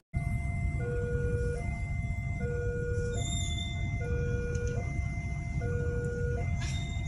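Electronic railway warning alarm sounding a two-tone hi-lo signal, a higher and a lower tone alternating about every 0.8 s, over a steady low rumble.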